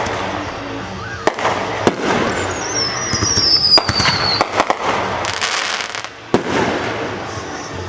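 Fireworks display: repeated sharp bangs of bursting shells with crackling between them, and a high whistle gliding downward for about two seconds starting about two seconds in.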